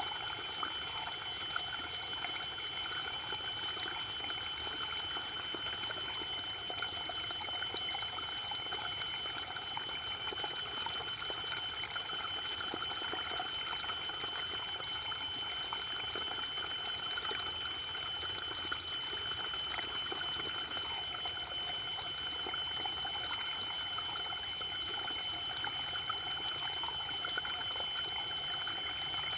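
Waterfall: a steady, even rush of falling water, with a few thin high-pitched tones held steady above it.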